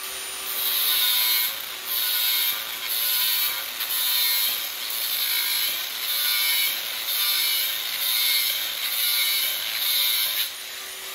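Cordless angle grinder with a cutting disc running and cutting galvanised steel wire mesh: a steady motor whine under a harsh grinding that swells about once a second as the disc bites through the mesh wires.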